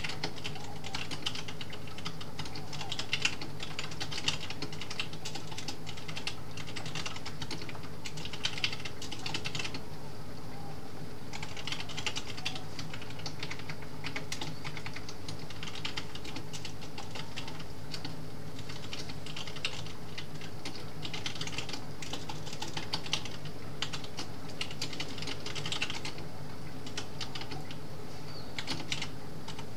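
Computer keyboard being typed on in fast runs of key clicks, pausing briefly about ten seconds in and again near the end, over a steady low background noise.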